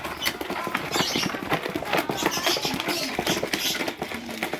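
Lovebirds chattering: a dense run of rapid shrill chirps and clicks.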